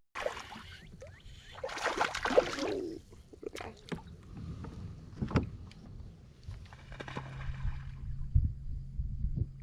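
Sounds of a kayak on the water: water swishing and sloshing, strongest a couple of seconds in, with scattered small knocks against the hull. A low steady hum comes in about seven seconds in.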